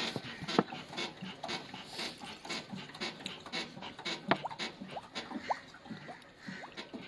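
Diesel glugging out of a plastic bottle into a tractor's fuel tank: a quick, uneven run of glugs with short rising gurgles as air bubbles back into the bottle.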